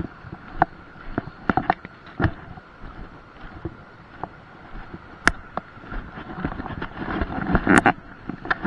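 Scattered sharp clicks and knocks from spinning-reel fishing tackle being handled at close range, over a steady wash of wind and shallow water. A denser run of knocks comes near the end.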